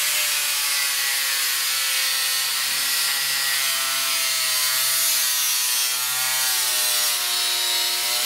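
Angle grinder with a cardboard cutting disc running, its motor whine wavering in pitch as a wax candle is pressed into the spinning disc, over a steady rubbing hiss of the disc cutting the wax.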